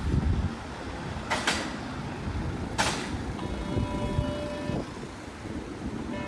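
Street traffic with a large vehicle rumbling, two short sharp air hisses like air-brake or door releases, then a steady electronic tone of several pitches sounding for about a second and a half.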